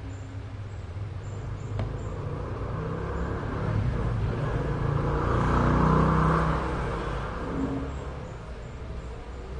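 A motor vehicle passing by outside: its engine sound grows louder, peaks about six seconds in, then fades away.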